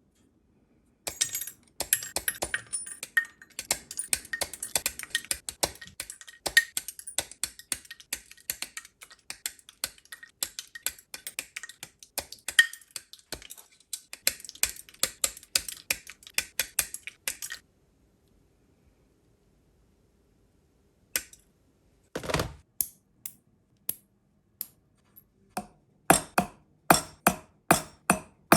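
Small metalworking on sterling silver pieces: a long run of rapid small clicks and scrapes of metal, then after a pause a series of hammer taps, about two a second, near the end.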